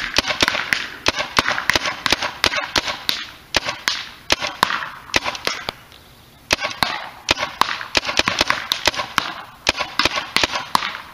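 Tippmann Gryphon semi-automatic paintball marker firing quick strings of shots, several a second, with a pause of about a second halfway through.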